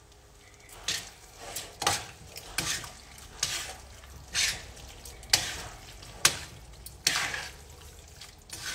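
Metal tongs tossing spaghetti in a stainless steel frying pan, clinking and scraping against the pan about once a second.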